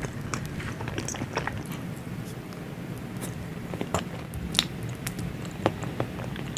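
Close-miked chewing of chocolate mochi: irregular wet, sticky mouth clicks and squishes, with a few sharper clicks about four and a half and five and a half seconds in, over a steady low hum.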